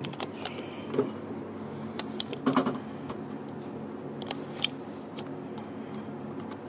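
A few light clicks and knocks, loudest about a second in and again midway, with brief high-pitched wavering chirps twice, over a steady low hum.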